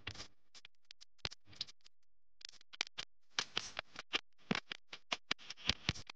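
Paper crackling and rustling under the fingers as folded paper petals are handled and pressed together. The crackles are sparse at first and come thicker from about halfway through.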